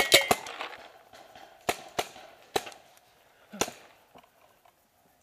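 Paintball marker firing: a quick string of about three shots right at the start, then four single shots spaced out over the next few seconds.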